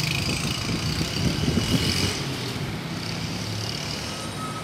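Road traffic on a multi-lane avenue: cars passing, louder over the first two seconds, then settling to a steady hum.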